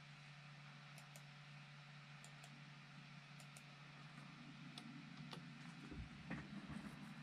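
Faint clicks of a computer mouse and keyboard, mostly in quick pairs, a few over several seconds, over a steady low hum. There is a soft low thump about six seconds in.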